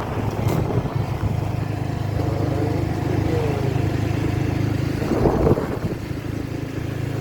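Motorcycle engine running steadily at road speed while riding, heard from the rider's position, with a brief louder burst about five seconds in.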